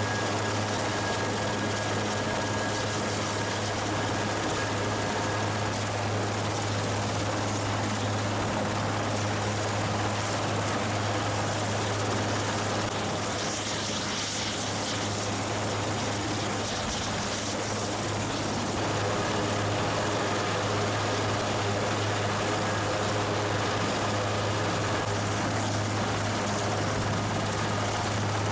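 Military transport helicopter running on the ground with its rotors turning: a loud, steady drone.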